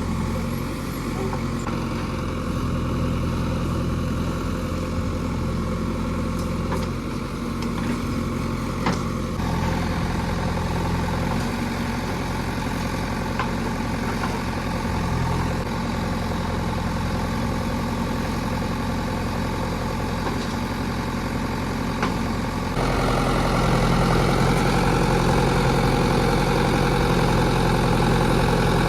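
Diesel engine running steadily at idle, stepping up louder and rougher about 23 seconds in.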